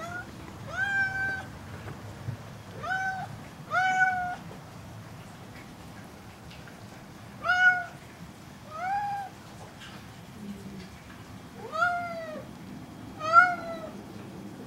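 Domestic cat meowing over and over, about eight short meows that each rise and then fall in pitch, with pauses of a second or more between them and a longer gap in the middle.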